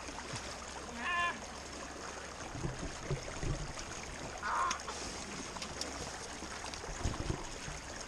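Steady rush of a river flowing over rocks, with low thuds and scuffs of someone clambering over boulders, and a short vocal sound about a second in.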